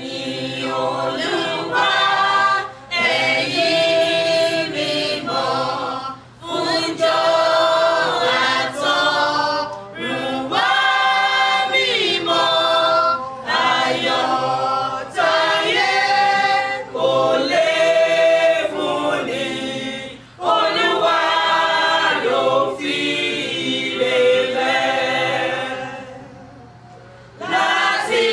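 Mixed church choir of women and men singing together in phrases with short breaths between them. Near the end the singing dies down for about a second, then comes back in.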